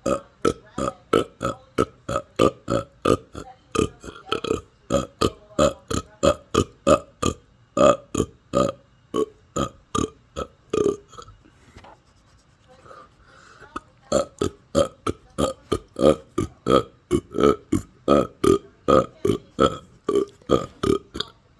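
A person burping over and over in quick succession, about three short burps a second. The run breaks off for a couple of seconds about halfway through, then carries on at the same pace.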